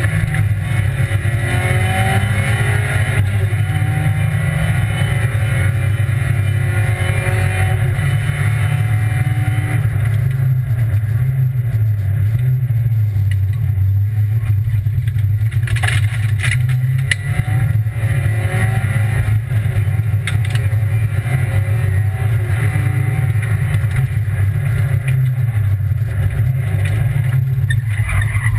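Rally car engine under hard acceleration, heard from inside the cabin, its revs rising and falling again and again through the gear changes. A few short knocks cut through about halfway in and near the end.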